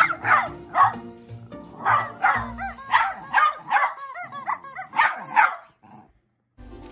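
A small terrier barking excitedly at a rubber chicken toy, over and over, in quick runs of about two to three barks a second. The barking stops near the end.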